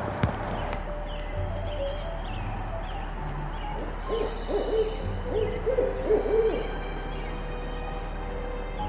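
Barred owl calling: a run of rolling hoots starting about four seconds in and lasting about two and a half seconds.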